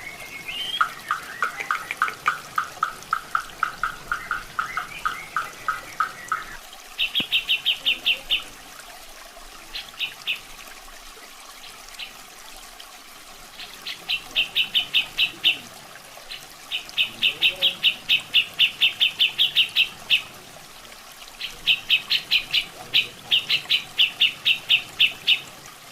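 Grey-cheeked bulbul (cucak jenggot) calling in rapid runs of repeated notes: a lower run for about five seconds, then several shorter, higher, faster bursts. Water trickles steadily underneath.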